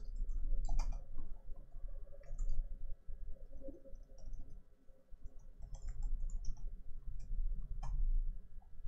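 Computer keyboard keys being pressed: irregular short clicks in small clusters as text is typed into a text editor.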